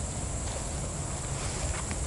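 Steady high-pitched chirring of crickets over a low rumble, with a few faint ticks near the end.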